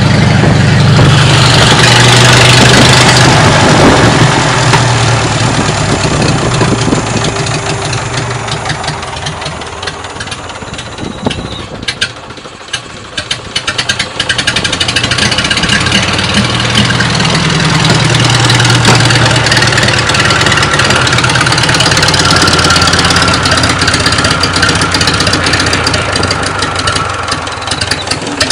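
Small engine of a restored carrow car running. About twelve seconds in it slows to separate, uneven firing beats, then picks up again and runs steadily.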